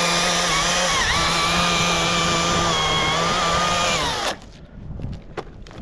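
Chainsaw engine running at high revs for about four seconds, with a brief dip in pitch about a second in, then dropping away sharply as the throttle is released.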